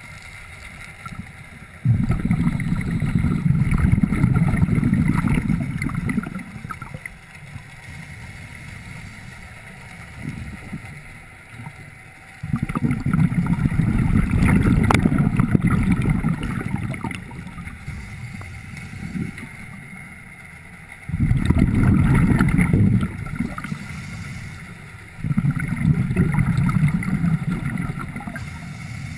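Scuba diver's exhaled bubbles gushing from the regulator, heard underwater through a camera housing: four long bursts, each a few seconds long, with quieter gaps between them as the diver breathes in.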